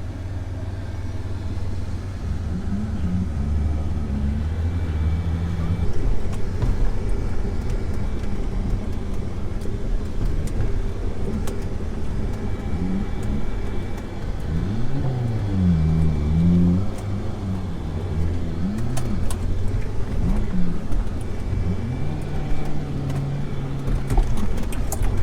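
An off-road vehicle's engine running low and steady, revved up and down several times about halfway through and again near the end.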